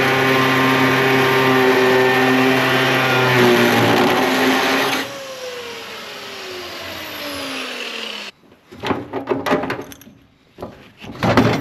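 Angle grinder cutting through an old seatbelt bolt whose nut has rounded off, running steadily for about five seconds, then spinning down with a falling whine over about three seconds once released. Then a few metal knocks and clatters.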